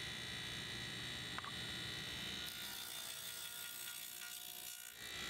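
Table saw running, heard faintly as a steady whine that thins out about halfway through, with one small click near the start.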